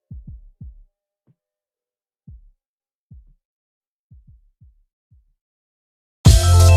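Soft, deep electronic thumps, each dropping quickly in pitch, come in irregular pairs and singles and grow fainter, like a heartbeat effect in a music intro. Near the end a loud music track with heavy drums comes in.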